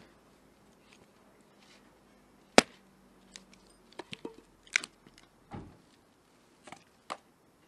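Hatchet splitting firewood on a hard cherry-wood chopping block: one sharp chop about two and a half seconds in, then lighter knocks and clatter as the split pieces are handled and set down.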